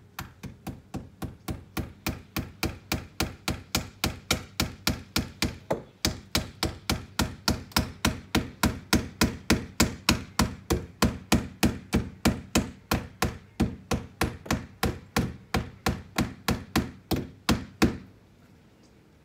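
Hammer driving nails into a window frame: a steady run of rapid blows, about three a second, growing louder over the first few seconds and stopping near the end.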